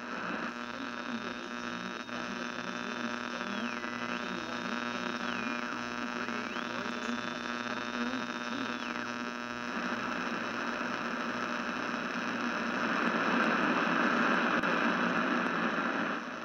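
Electronic droning noise: a steady buzzing hum with many overtones over a low pulsing, with a high whistling tone that drops and climbs back a few times during the first nine seconds, and a hiss that swells about ten seconds in.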